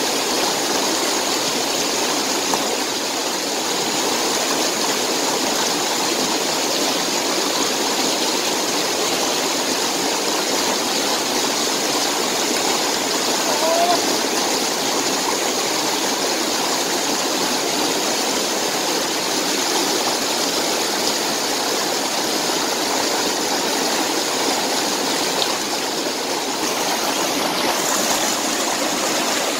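Shallow rocky stream rushing over stones, a steady, even rush of water with no let-up.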